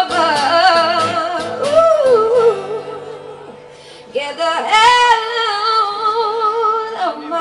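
Live acoustic music: a woman sings long, wavering held notes over acoustic guitar and ukulele. The voice drops out for a second or two about halfway, leaving the strummed strings, then comes back on a high held note.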